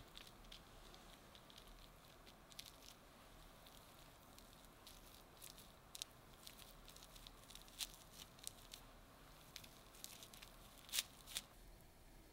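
Faint soft crackles and clicks of sticky sushi rice being pinched and pressed onto a sheet of nori on a plastic-wrapped bamboo rolling mat, with a couple of sharper clicks near the end.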